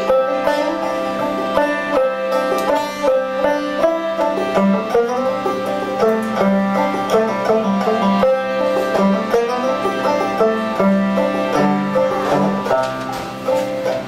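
Instrumental break of a folk song: a banjo picking notes over long sustained chords from a harmonium.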